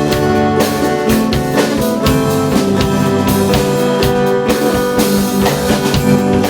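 Live rock band playing, with a drum kit keeping a steady beat under guitars.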